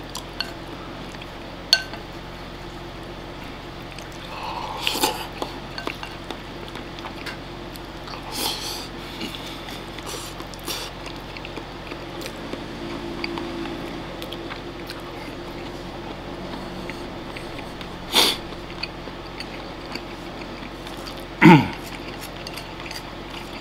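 Wooden chopsticks clicking and scraping against a ceramic rice bowl while eating, a few separate sharp clicks over a steady low room hum, with chewing in between. Near the end comes one short, louder falling mouth sound.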